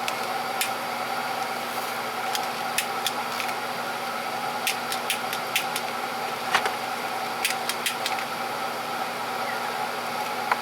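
Steady electrical hum of the battery charger powering the electrolysis tank, with irregular small sharp clicks scattered through it.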